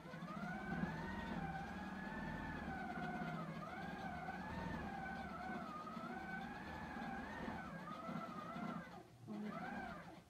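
Handi Quilter longarm quilting machine running as it stitches a quilt on its frame. Its motor whine wavers up and down in pitch over a steady low hum, and dips almost to a stop briefly about nine seconds in.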